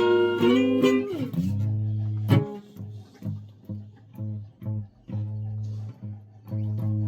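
Guitar playing: held notes that bend down in pitch about a second in, then a low note picked over and over with short breaks between strokes.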